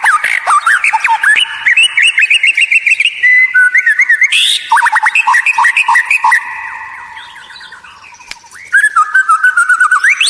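White-rumped shama (murai batu) song: a fast, continuous run of loud whistled notes, rapid sweeps and held tones. It fades down about seven seconds in, then comes back loud near the end.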